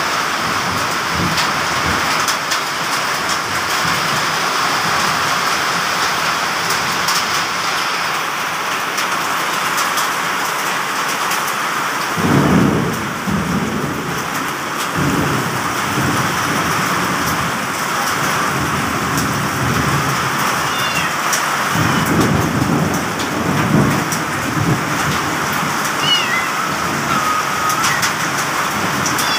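Heavy rain pouring steadily, with low rumbles of thunder about twelve seconds in and again a little past twenty seconds.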